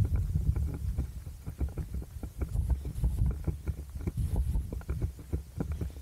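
A runner's footsteps, several quick footfalls a second, over a steady low rumble of wind and movement on the camera's microphone.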